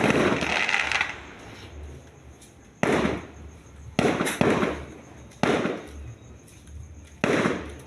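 Aerial fireworks bursting: a crackling burst at the start, then a run of sharp bangs about a second apart, each followed by a short crackling tail.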